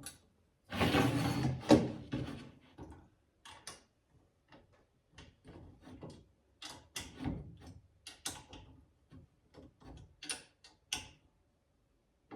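Chain grinder stand being assembled by hand, its leg mounting bolts tightened with an Allen key: a scraping rattle of metal parts about a second in, then a string of irregular light clicks and knocks.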